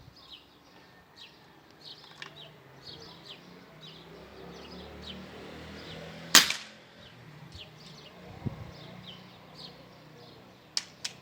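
A single air rifle shot, one sharp crack about six seconds in, fired through a chronograph to measure pellet speed, followed about two seconds later by a duller knock. Birds chirp faintly throughout, and a low hum runs for a couple of seconds before the shot.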